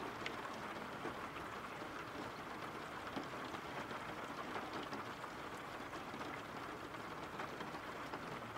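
Steady rain falling, an even hiss with a light patter of drops.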